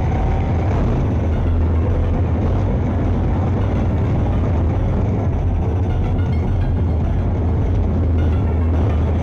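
M113 armoured personnel carrier running steadily at close range, a constant low rumble of engine and tracks.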